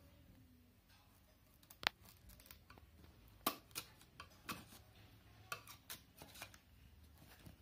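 Knife blade cutting and prying at a clear plastic packaging box, giving scattered sharp plastic clicks and snaps, the loudest about two seconds in.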